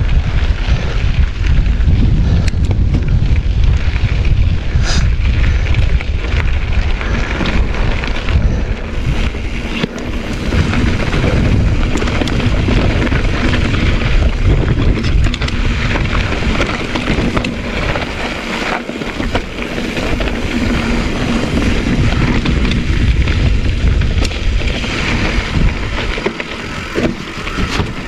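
A mountain bike rolling over rocky singletrack: tyres crunching over stones and the bike clicking and rattling, under a heavy low rumble of wind on the action camera's microphone.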